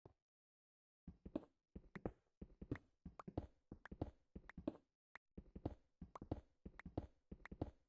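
A quick, uneven run of knocks or taps, a few a second, beginning about a second in, with a short break near the middle.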